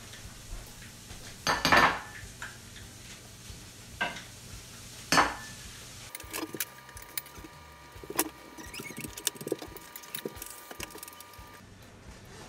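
Kitchen work sounds: scattered light clicks and knocks of a knife and utensils, with two short, loud noisy bursts about one and a half and five seconds in.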